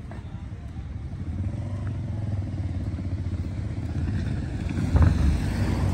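A car driving past close by on the road. Its engine and tyre noise grow louder to a peak about five seconds in, over a low rumble of wind on the microphone.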